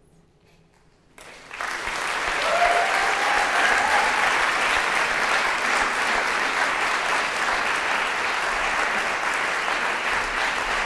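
Audience applause in a concert hall, breaking out suddenly about a second in after a moment of near silence at the end of a choir's song, then continuing steadily.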